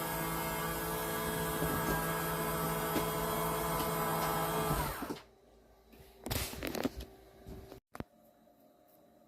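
Travel trailer's full-size slide-out motors running with a steady whine, driven through a replacement winch controller, then cutting off suddenly about five seconds in. A few faint knocks follow.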